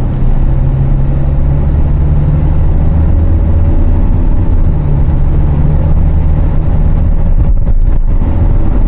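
Kia Carnival minivan's engine accelerating under steady throttle up a hill, heard inside the cabin as a steady drone mixed with road noise.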